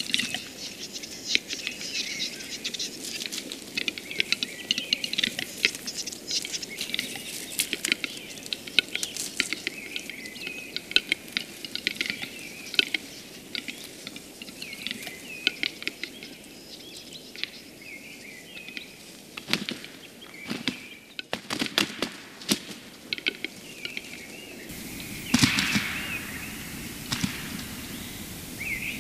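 Western capercaillie lek: displaying cocks' song of dry, irregular clicking phrases and short scraping whetting notes, several birds overlapping, with chirping calls among them.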